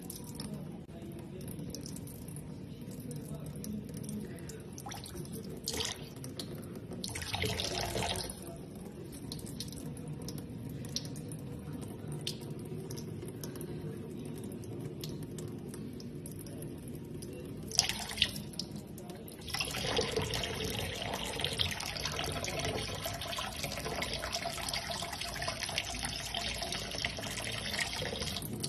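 Thin stream of tap water running into a stainless steel sink and a small metal bowl, a steady trickle and splash. It grows louder about two-thirds of the way through, just after a few sharp clicks.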